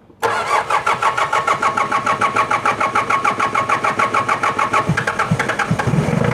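Mitsubishi 4D56 four-cylinder diesel engine being cranked by its starter in an even, rapid beat of about six to seven compressions a second for around six seconds, with a few heavier low thumps near the end, without catching: a hard-start, no-start condition.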